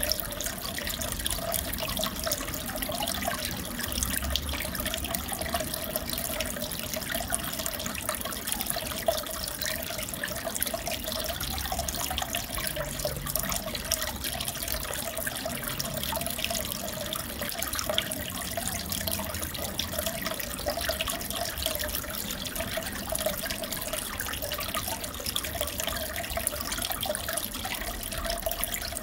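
Steady trickling and bubbling of aquarium water circulating through the tank, with a steady hum underneath.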